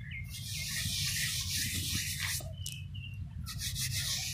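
A hand rubbing maida flour into the carved letters of a stone inscription pillar to make the writing readable: a dry scrubbing rasp that pauses briefly about three seconds in, then starts again.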